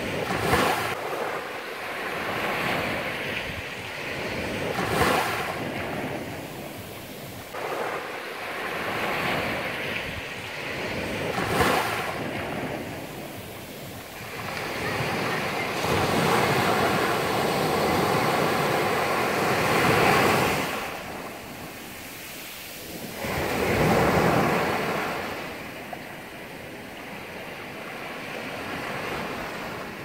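Small ocean waves breaking and washing up a flat sandy shore, swelling and fading every few seconds, with a longer, louder surge about halfway through.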